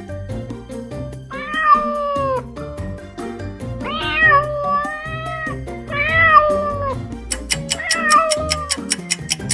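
A cat meowing: three drawn-out meows about a second long each, then a fainter one near the end. Background music plays underneath and picks up a steady clicking beat in the last couple of seconds.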